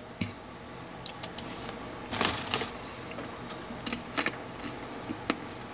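Scattered short clicks and taps from someone working a laptop while browsing web pages, with a small cluster of clicks a little after two seconds, over a steady high hiss.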